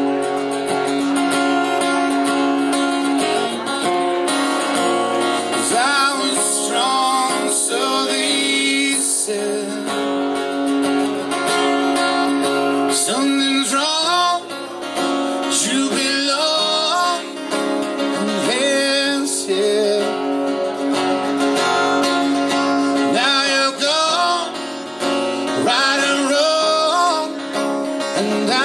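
Music: a song with strummed acoustic guitar and a singing voice.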